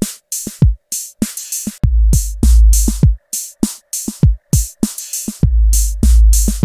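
Electronic background music with a drum-machine beat: sharp, evenly spaced drum hits and long, deep bass notes that come in about two seconds in and again past five seconds.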